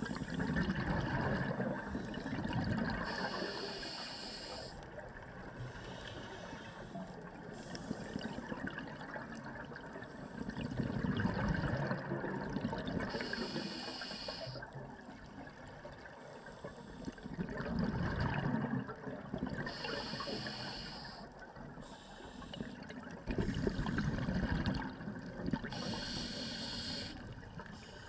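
Scuba regulator breathing heard underwater: a short hiss on each inhale alternating with a gurgling rush of exhaled bubbles, a breath every few seconds.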